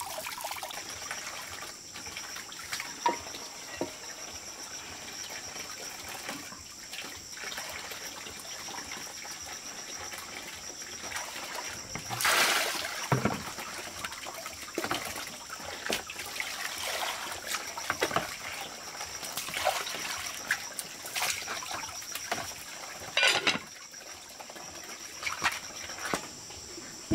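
Water splashing and trickling as a plucked chicken is rinsed by hand in a plastic basin, with water poured from a dipper a few times; the loudest splashes come about halfway through and again near the end.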